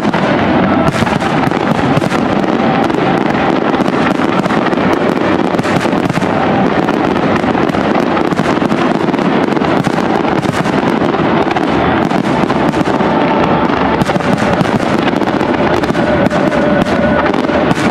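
Aerial firework shells bursting in a dense, unbroken barrage: rapid overlapping bangs and crackling at a steady high level.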